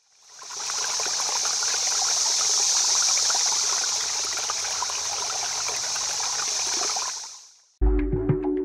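Running stream water, a steady rushing trickle that fades in and then fades out. Music starts abruptly near the end.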